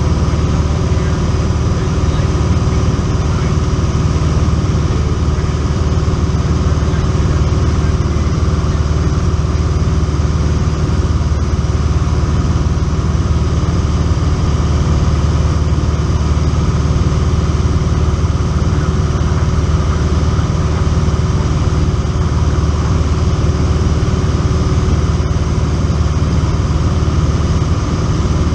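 Single-engine light aircraft's piston engine and propeller running at a steady drone in level flight, heard from inside the cockpit.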